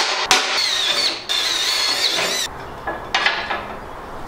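Cordless drill boring a bolt hole through the welding cart's sheet metal, with a high, wavering whine from the bit for about two seconds, then a brief second run about three seconds in.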